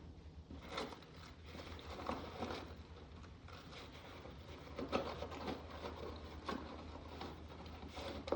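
Faint scattered clicks and rustles of hands working electrical wires and wire nuts while connecting a wall light fixture, over a low steady hum.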